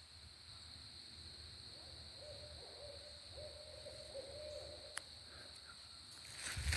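An owl calling faintly: one wavering, trilled run of notes at a single pitch, lasting about three seconds.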